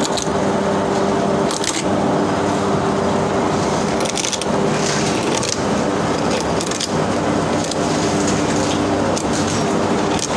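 Coconut deshelling machine running with a steady motor hum, its spinning cutter scraping and cracking against coconut shell again and again as the kernel is prised out.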